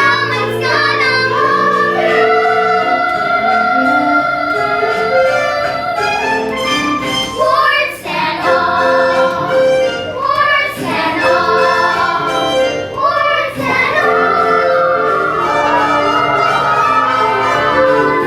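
A children's chorus and a solo singer sing long held notes over backing music, the closing refrain of a musical-theatre song.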